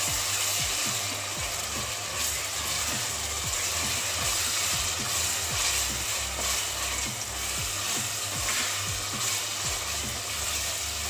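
Onions and ginger-garlic paste sizzling in hot oil in a pressure cooker while being stirred and sautéed.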